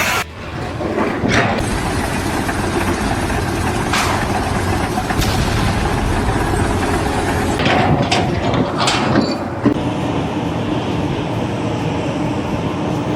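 A heavy engine running steadily, with several sharp knocks scattered through.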